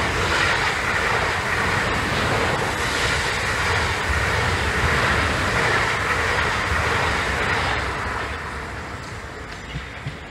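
Electric passenger train running fast past the platform on the near track: a steady rush of wheel, rail and air noise with a low rumble, easing off over the last couple of seconds.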